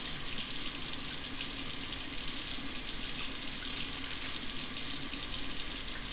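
Hot water running steadily from a faucet, a constant rushing hiss with a faint low hum beneath it, during a test of how long a tankless water heater takes to deliver hot water.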